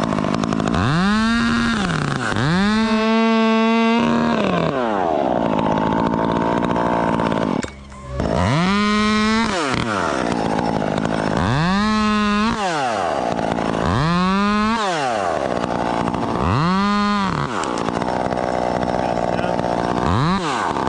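Two-stroke chainsaw revved up to full throttle and let back down, about six times over, sometimes held at the top for a second or two, with a brief dip in sound a little before the midpoint.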